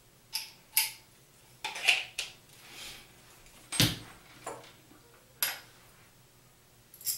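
Scattered metallic clinks and light knocks of small metal hardware and a screwdriver being handled, about nine irregular taps, with a heavier knock a little past the middle.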